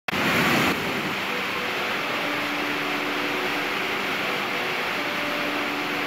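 Steady rushing roar of a waterfall, louder and brighter for the first split second. Faint steady tones come in about two seconds in.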